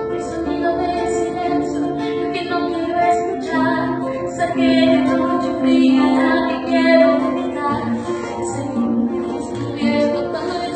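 A woman singing a melody over instrumental backing.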